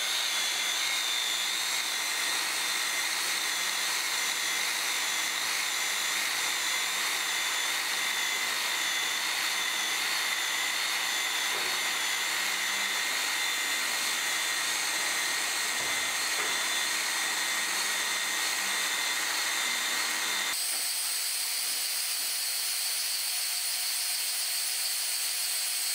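WELDY booster EX2/EX3 handheld plastic extrusion welder running as it extrudes a weld seam: its drive motor and hot-air blower give a steady high whine over a rush of air. About twenty seconds in, the pitch of the whine shifts abruptly.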